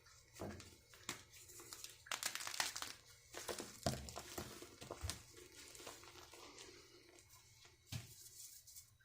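Fresh blocks of gym chalk being crushed, giving irregular crunching and crackling, densest a couple of seconds in, with a few heavier crunches.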